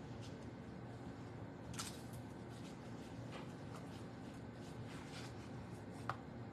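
Faint handling of cardstock and ribbon: a few light rustles and taps of paper being pressed and lifted, the clearest about two seconds in and a short click near the end, over a low steady hum.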